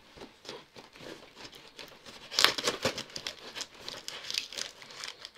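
Knife slitting packing tape along a cardboard box, with crackling tape rips and cardboard scraping in irregular short bursts; the loudest tear comes about two and a half seconds in.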